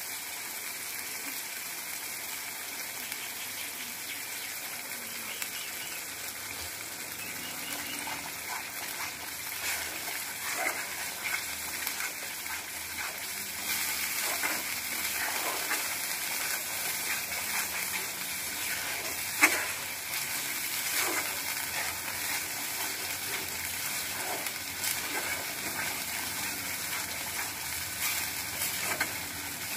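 Mustard, poppy-seed and garlic paste frying in oil in a karahi: a steady sizzle with scattered pops and spatula clicks, one sharper click a little under two-thirds of the way through. The masala is being fried down before water is added.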